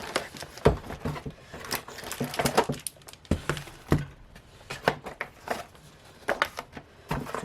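Merchandise and its packaging being handled and lifted out of a cardboard box: irregular crinkling with light knocks and taps.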